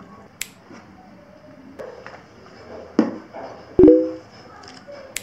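Plastic drink bottle set down on a tabletop: a couple of light knocks, then a thump with a brief ringing tone that fades, just before four seconds in.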